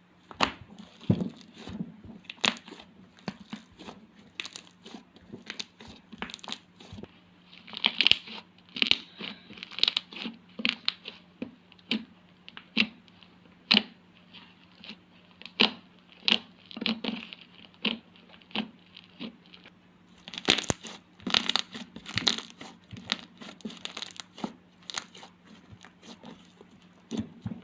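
Homemade slime being squeezed and pressed by hand, giving irregular sharp pops and crackles several times a second, with denser clusters about 8 and 21 seconds in.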